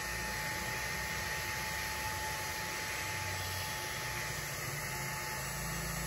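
Xiaomi Mijia mini cordless handheld vacuum cleaner running steadily on its half-power setting: an even rush of motor and airflow with a faint steady whine.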